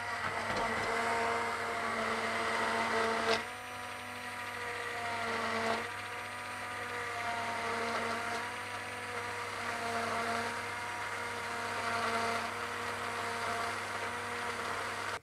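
Philips hand immersion blender running submerged in a pot, puréeing boiled potato and onion into a smooth soup base. Its motor hum is steady and dips briefly in pitch and level at about three and a half seconds and again near six seconds, then cuts off at the end.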